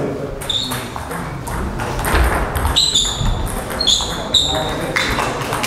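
Table tennis ball being hit back and forth in a rally, a series of sharp, high pings from bats and table, irregularly spaced, starting about half a second in and coming quickest near the middle, echoing in a sports hall.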